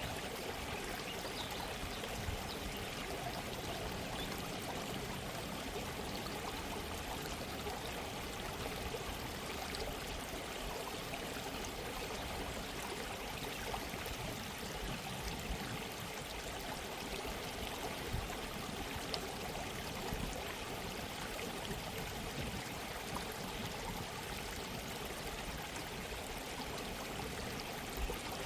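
Gently running stream water, a steady, even babble of a small brook.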